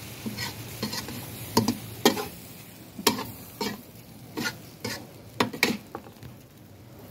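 Metal spatula scraping and knocking against a steel wok while stir-frying glass noodles with shrimp and vegetables, about two strokes a second, over the sizzle of the food in the hot pan. The strokes stop about six seconds in.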